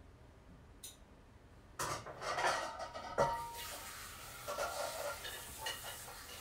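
Kitchen pots and dishes clattering as a pot is set up for steaming dumplings, with a sharp metal clank about three seconds in, then a steady rushing noise.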